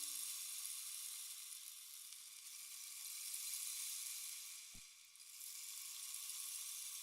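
Faint, steady high-pitched hiss like static, swelling and fading, with one soft click about five seconds in.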